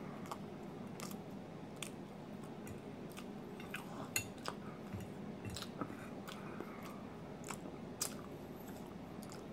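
A person chewing a mouthful of pancake, with scattered short sharp clicks now and then.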